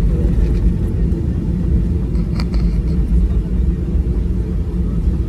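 Steady low rumble heard inside the cabin of a Boeing 737-800 taxiing after landing, its engines at idle. A brief click sounds about two and a half seconds in.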